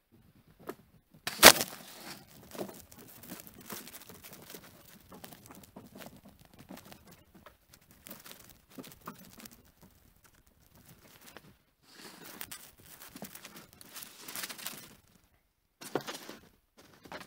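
Rustling and crunching handling noises, clothing, snow and branches, as a trapped pine marten is handled at a log trap set, with one sharp knock about a second and a half in and another near the end.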